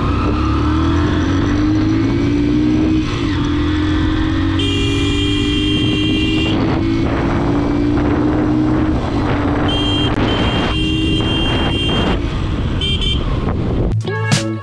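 Motorcycle engine running under way, its pitch climbing slowly as it pulls, with a vehicle horn sounding two long blasts and a short toot. Music cuts in just before the end.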